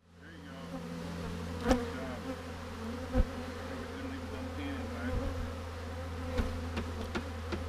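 A mass of Italian honeybees buzzing in a steady hum as a package of bees is shaken out into a wooden hive box. Two sharp knocks from the wooden package being handled, about one and a half and three seconds in.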